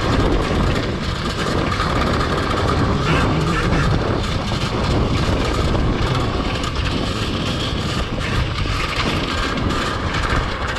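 Wind buffeting the microphone and tyre rumble on dirt from an electric pit bike riding at speed, a steady rush with no engine note.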